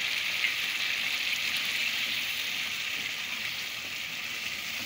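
Mutton karahi masala frying in a pan over high heat, a steady sizzle as it is stirred with a spatula, with one light click about half a second in. The yogurt masala is nearly fully fried (bhuna).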